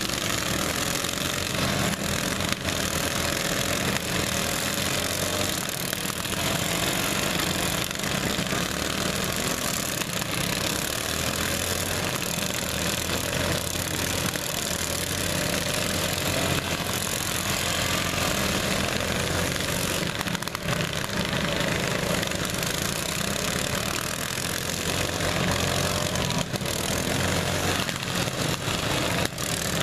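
Several riding lawn mower engines running together in a demolition derby, a steady overlapping drone with a few short knocks.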